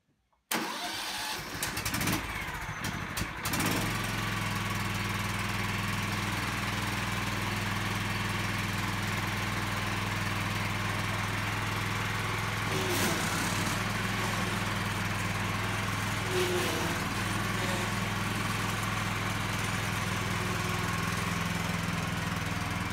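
John Deere Sabre ride-on mower's engine cranked by its starter for about three seconds, then catching and running steadily. The mower is driven off under its own power, testing its hydrostatic drive after a fluid change and new drive belt.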